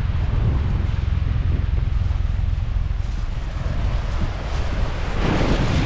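Wind buffeting the microphone with a constant low rumble, and a short burst of rustling about five seconds in.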